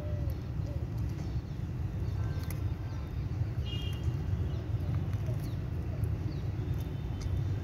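Steady low rumble of background noise, with faint scattered clicks of an Indian star tortoise biting and chewing a piece of soft white food.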